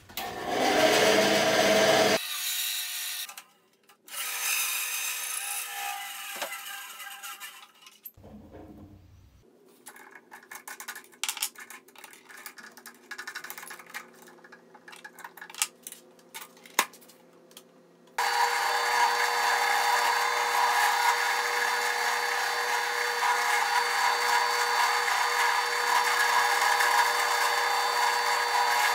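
A drill press with an end mill milling high-density plastic: short chopped-up stretches of cutting noise and scattered clicks, then, a little past the middle, a steady run of the motor's whine with the cutter chewing through the plastic.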